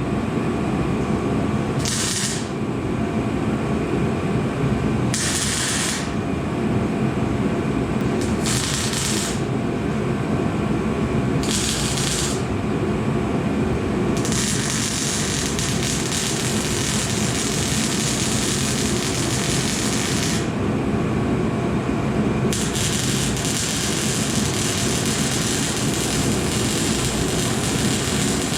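Metal-fabrication tool work: a steady machine drone with repeated bursts of hissing, short at first, then one lasting about six seconds, then another running on near the end.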